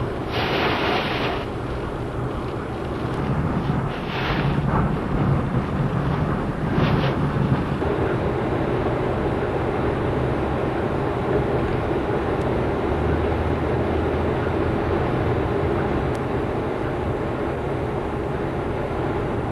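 Hurricane wind rumbling on the microphone, with a steady low hum underneath and stronger gusts about a second in, around four seconds and around seven seconds.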